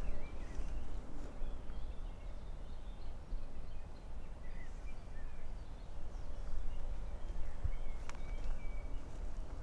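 Floodplain woodland with birds giving short, scattered chirps over a steady low rumble, and one sharp click about eight seconds in.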